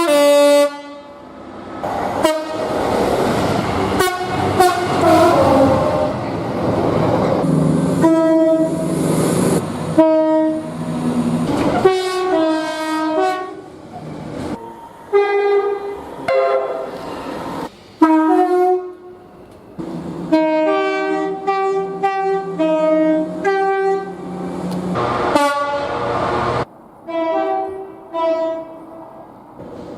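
A series of different train horns sounding one after another, each cut off abruptly by the next. Some hold a single chord, others alternate between two notes, with the rushing noise of passing trains between and under them.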